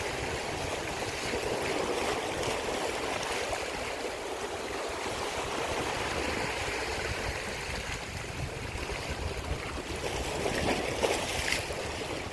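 Sea water washing against the shore, a steady rushing with low, shifting rumble, and a few short knocks near the end.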